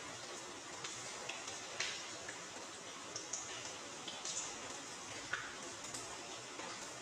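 Steady rain falling, an even hiss, with a few sharp ticks of drops landing close by.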